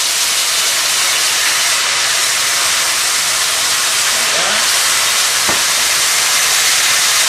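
White wine (Pinot Grigio) hissing and sizzling steadily as it boils off in a hot sauté pan, deglazing the chicken drippings and shallots. There is a single light click about five and a half seconds in.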